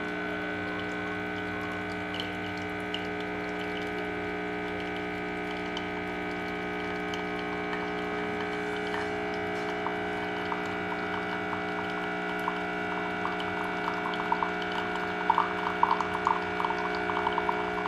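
B Coffee Co. capsule coffee machine brewing: its pump runs with a steady hum while coffee pours and drips into the cup. A light crackling spatter builds up near the end.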